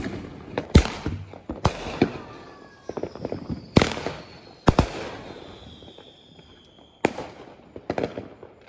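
Aerial fireworks going off: about six sharp bangs at uneven intervals, with crackling between them and a long, faint, falling whistle in the middle.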